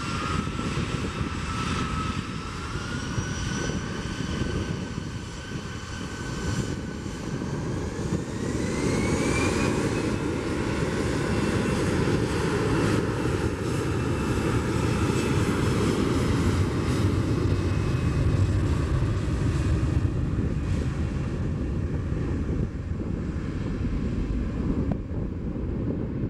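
Airbus A340-313's CFM56 turbofan engines running, their whine rising in pitch over about the first ten seconds and then holding steady over a low rumble, as the engines spool up.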